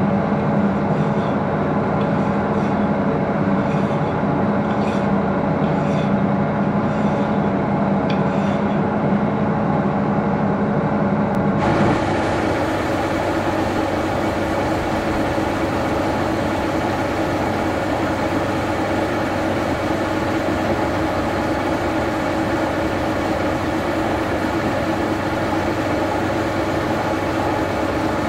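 Lathe running while a hand file is stroked against the work in its four-jaw chuck, a light scrape roughly every second over a steady machine hum. About twelve seconds in it changes suddenly to an old milling machine's end mill cutting a metal block held in a vise, a steady, fuller cutting noise.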